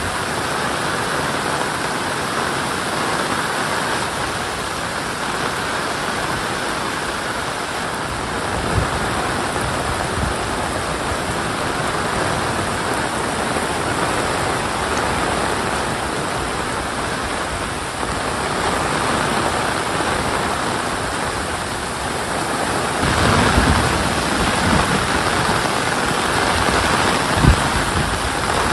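Steady rain falling, an even hiss throughout, with a few brief low thumps, the sharpest near the end.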